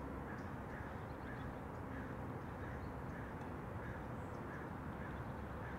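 Faint steady background hiss with a small animal's short chirp repeating about every half second.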